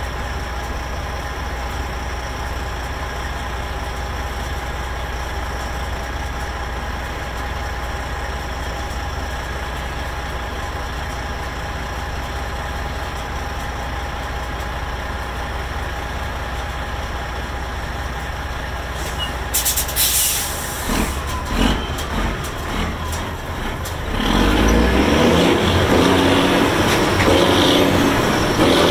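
Semi truck's diesel engine, with straight exhaust stacks, idling with a steady low rumble; about twenty seconds in there is a sharp air hiss, typical of the air brakes being released. A few seconds later the engine comes up loud under load as the truck pulls away.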